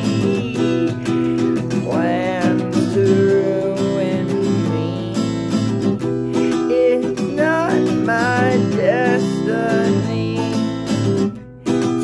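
Acoustic guitar strummed in steady chords, with a voice singing over it in places. The playing stops for a moment near the end, then picks up again.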